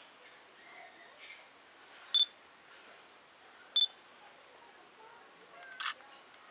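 Digital camera beeping twice, short and high, about a second and a half apart, then a sharp shutter click near the end.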